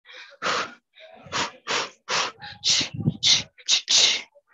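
Sharp, hissing exhales through the teeth, one with each punch, about two or three a second, from a boxer throwing fast shadow-boxing combinations.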